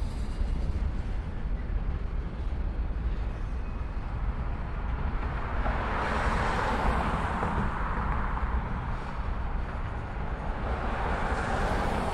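Norfolk Southern freight train of tank cars rolling slowly over a railroad bridge, a low steady rumble of wheels on rail. A hiss swells and fades about halfway through and again near the end, the second time from a car passing on the street below.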